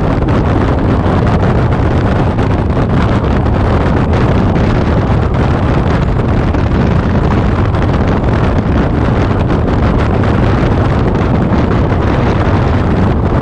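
Steady wind rush on the microphone of a camera mounted on a moving motorcycle at road speed, mixed with the motorcycle's engine and road noise.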